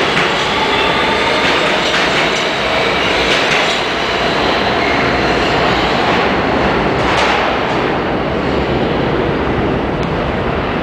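NYC subway garbage train of converted R32 and R33WF cars rolling past close by in an underground station. It makes a steady loud rumble and clatter of wheels on rail, with faint wheel squeal and a few metallic clanks, the sharpest about seven seconds in.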